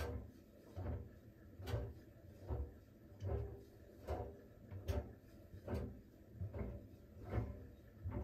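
Siemens iQ700 front-loading washing machine's drum tumbling a load during the steam phase of its smartFinish programme. The clothes drop with a soft thud and swish a little more than once a second, evenly.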